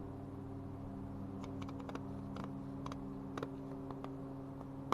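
Scissors snipping: a scattering of short, sharp clicks, several close together from about a second and a half in and a last one near the end, over a steady low hum.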